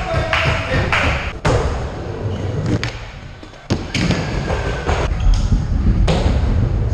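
Skateboard wheels rumbling over a concrete skatepark floor, broken by several sharp knocks of the board hitting the ground. The loudest come about a second and a half in and just before four seconds in.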